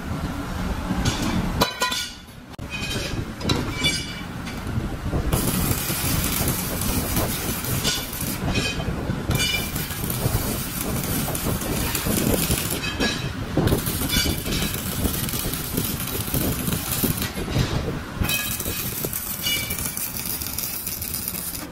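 Stick (electric arc) welding on a steel wheel rim: the arc crackles steadily, with a short break about two seconds in.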